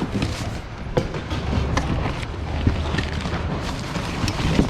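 Plastic DVD cases knocking together as someone rummages through a bin of movies: a few sharp clacks over a low, steady rumble.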